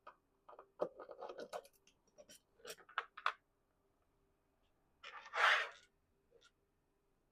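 Hand-handling noise as a rotary attachment is loosened and shifted on its mounting plate: a quick run of small clicks and knocks, then a louder short scrape about five seconds in.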